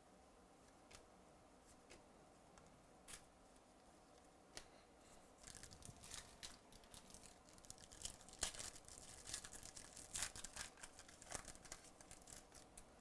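Foil baseball-card pack being torn open and its wrapper crinkled. The crackling starts about five seconds in, after a few faint clicks, and is loudest in sharp rips toward the end.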